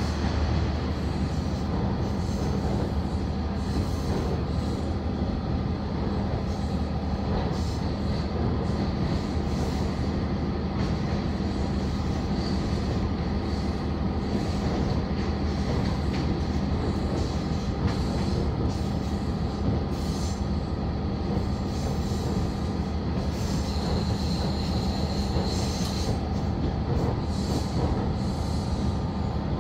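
KiHa 40-series diesel railcar running along the line, heard inside the passenger cabin: a steady low engine drone with wheel and rail noise. A high wheel squeal rises for a couple of seconds late on.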